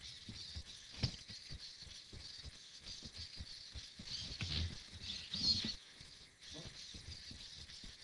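Hexapod robot walking, heard from its own onboard camera: a quick, uneven patter of light taps from its legs and servos over a steady high hiss. There is a sharp click about a second in and two louder noisy stretches about four and a half and five and a half seconds in.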